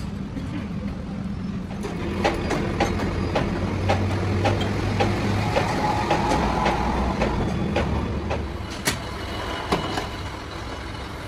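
Steady hum of machine-shop motors with a run of light metallic clicks and taps, about two a second, from metal tooling being handled on a lathe, and a sharper clank near the end.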